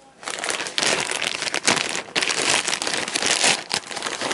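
Grey plastic poly mailer bag crinkling and crackling as it is handled, a dense run of sharp rustles.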